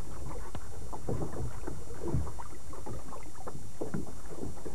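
Wind on the microphone and water lapping at a small fishing boat, with irregular small knocks and splashes from hands reaching into the boat's bait well for a minnow.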